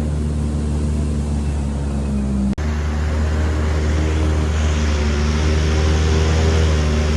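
Airboat's engine and propeller running steadily, a loud low drone with a rushing hiss over it. The sound cuts out for an instant about two and a half seconds in, then carries on with the hiss a little stronger.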